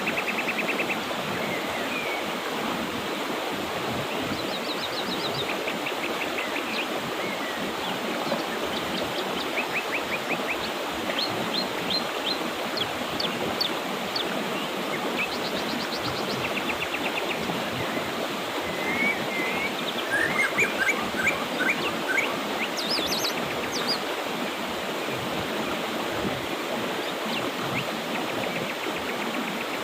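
Mountain river rushing steadily, with small birds singing short rapid trills and chirps over it, busiest and loudest about two-thirds of the way through.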